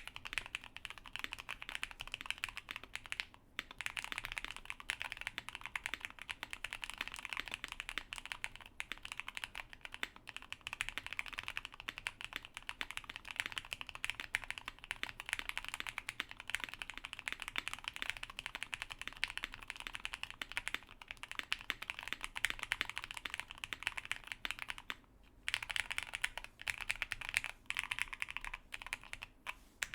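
Fast, continuous typing on a Hex4b mechanical keyboard with Gateron Yellow linear switches: a dense run of keystroke clacks, broken by brief pauses about three seconds in and again near twenty-five seconds.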